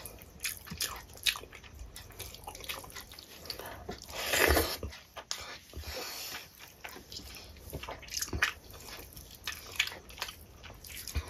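Close-miked eating sounds: wet chewing and lip smacks of a mouthful of rice and fish, with fingers squishing rice into dal on a steel plate, as a run of small clicks and smacks. One louder noise, lasting about half a second, comes about four seconds in.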